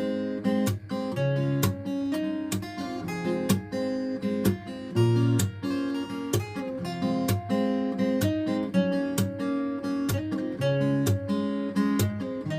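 Acoustic guitar strummed in a steady rhythm with changing chords, an instrumental break between sung verses.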